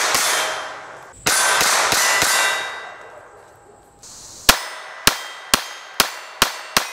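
A .25 ACP Armi Galesi pocket pistol firing. In the second half, six sharp shots come in quick succession, about two a second. The first half holds two longer loud rushes of noise.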